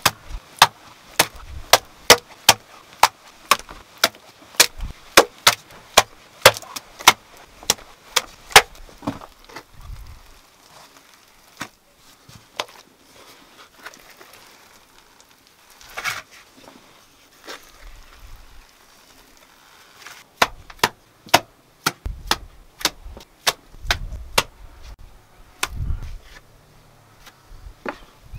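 A trowel striking and scraping against an earth and clay wall. It makes sharp clicking taps, about two a second at first, then scattered taps with a few dull thuds.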